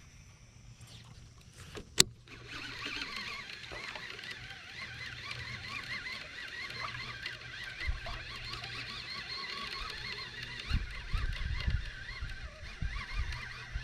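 Baitcasting reel being cranked on a steady retrieve: a continuous whirring purr that rises and falls in pitch with each turn of the handle, starting right after a sharp click about two seconds in. Low thumps of handling sound near the end.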